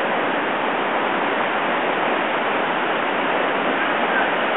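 Whitewater creek rushing over a waterfall and through rapids: a loud, steady wash of falling and churning water.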